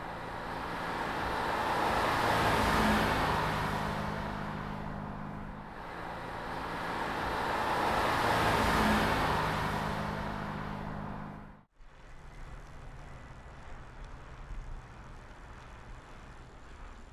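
A car driving past at speed twice, each pass a swell of engine and tyre noise that builds to a peak and fades. About three-quarters of the way through the sound cuts off abruptly to a quieter steady outdoor background.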